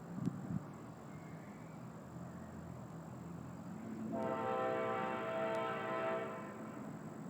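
A train horn sounds one steady, held blast of about two seconds, starting about four seconds in. A few low thumps come in the first half second.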